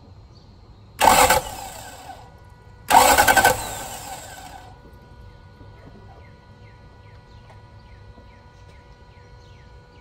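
Starter cranking a 1999 Toyota Land Cruiser 100's V8 in two brief bursts, about a second in and again about three seconds in, each about half a second long, and the engine does not catch. This is a crank-no-start, cranked with the fuel line off at the filter to test whether the fuel pump is delivering.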